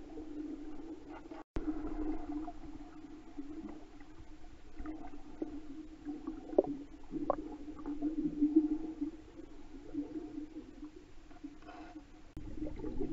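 Muffled underwater sound in a swimming pool picked up by a submerged camera: a steady low hum, with a few sharp clicks around the middle. The sound cuts out completely for a moment about one and a half seconds in.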